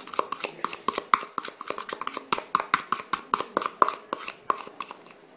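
Metal spoon stirring and scraping a thick baking soda and water paste in a plastic bowl, making quick clicking taps at about five or six a second that thin out near the end.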